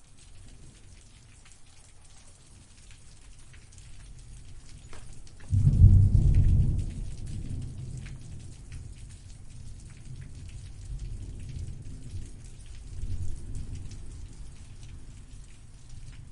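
Thunderstorm: steady rain patter with a sudden loud clap of thunder about five and a half seconds in that rumbles and fades over a few seconds, then a softer second rumble swelling near the end.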